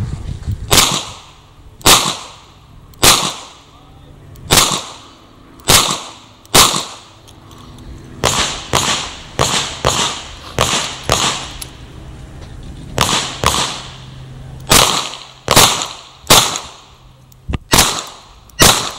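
A .38 Special Chiappa Rhino revolver fired in strings of shots, about twenty in all: at first roughly one shot a second, then quicker runs, with short pauses between the strings.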